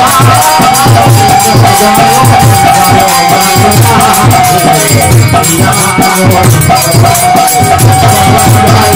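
Bengali kirtan music: a khol drum beats a steady rhythm under rapid, bright clashing of kartal hand cymbals, with a long held melodic line above.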